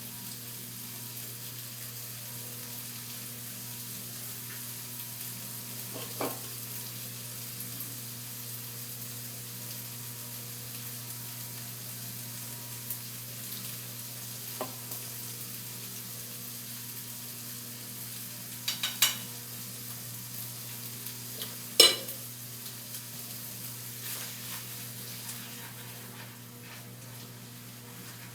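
Food sizzling in a frying pan, with a steady hiss and a few sharp clinks of a utensil against the pan, the loudest about three quarters of the way through.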